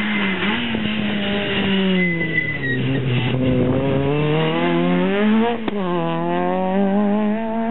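Citroën Saxo rally car driven hard past close by: the engine note drops as it lifts off for the bend about two seconds in, then climbs as it accelerates out, with a quick gear change near six seconds in before the revs hold high as it pulls away.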